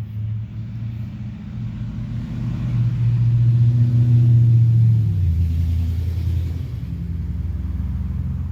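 Low rumble of a vehicle engine, growing louder to a peak about four seconds in, then dropping in pitch and slowly easing off.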